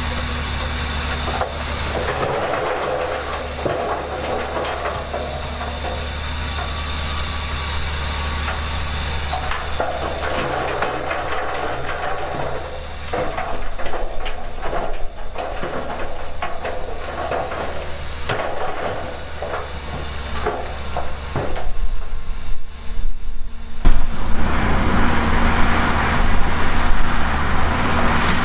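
Heavy diesel earthmoving machinery running, a bulldozer and dump trucks working sand and stone, with a steady low engine rumble. Bouts of rattling and clattering come through the middle, and the machinery is louder near the end.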